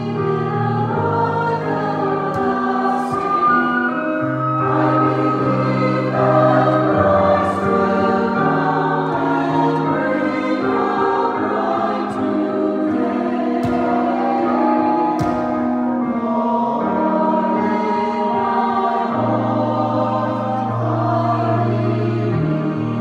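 An adult choir singing slow, held chords, with the hiss of sung 's' consonants cutting through a few times.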